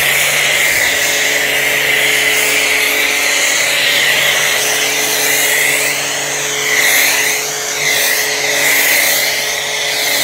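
Starq AWP 2.8 electric pressure washer running steadily with a foam cannon attached, a steady motor hum under the loud hiss of thick foam spraying onto the car body. The hiss shifts a little partway through as the spray is swept across the car.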